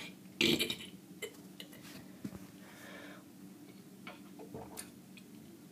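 A person's short, loud burp about half a second in, then faint small clicks and a softer sound near three seconds.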